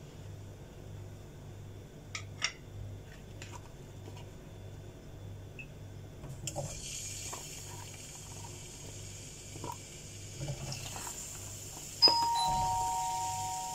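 Raw potato wedges dropped one by one into hot oil in an iron kadhai: the oil sets up a steady sizzle about halfway through, with soft knocks of the pieces against the pan. Near the end a two-note chime, a higher note then a lower one, rings out and slowly fades; it is the loudest sound.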